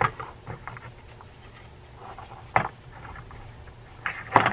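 Small metal clicks and scrapes of a screwdriver working on the posts and side plate of a vintage Ocean City 6051 reel. There is a sharp click at the start, another about halfway through, and a louder cluster near the end.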